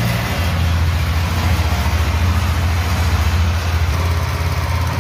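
Small engine of a cart-mounted sugarcane juice machine running steadily with a low, even hum.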